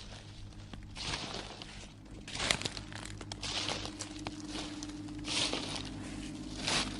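Horror sound effect: irregular crunching and rustling noises about a second apart, over a low steady hum.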